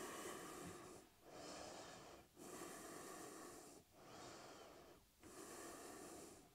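Faint breathing through the nose: about five breaths in and out, each a second or so long, with short gaps between them.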